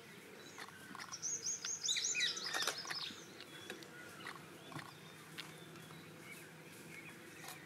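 Birds chirping: a quick run of high, sliding chirps about a second in, lasting a couple of seconds, then fainter scattered chirps.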